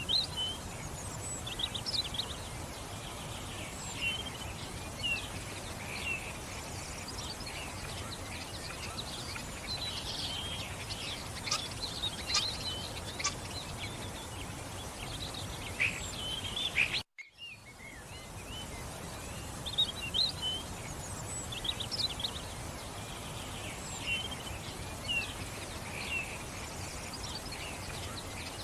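Birds chirping in short, scattered high calls over a steady background hiss, with a momentary cut-out just past the middle.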